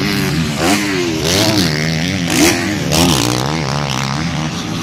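Motocross dirt bike engines revving, the throttle opened and closed again and again so the engine note rises and falls about once a second.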